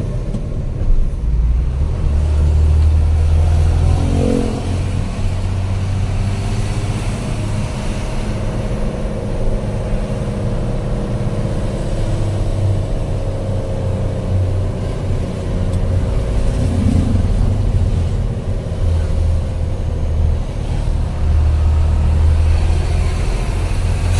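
Truck engine running under load while driving, heard from inside the cab as a loud low drone that swells and eases with the throttle.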